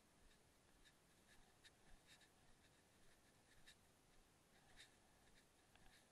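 Near silence, with faint, short ticks coming irregularly about twice a second.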